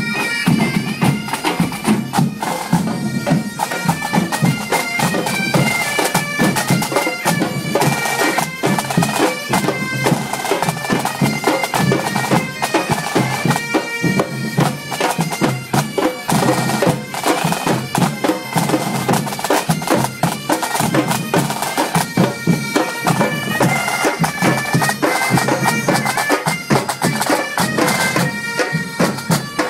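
A Breton bagad, a pipe band, playing: bagpipes carry a melody that steps quickly from note to note, over a steady rhythm of drums.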